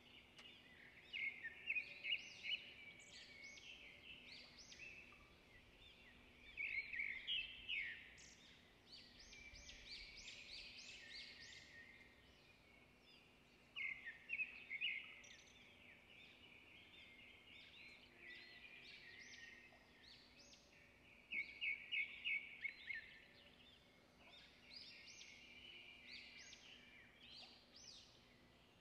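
Faint birdsong: clusters of high chirps and quick trills that come and go every few seconds.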